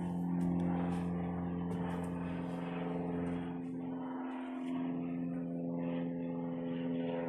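A steady engine drone holding one unchanging pitch, its low end dipping briefly about four seconds in.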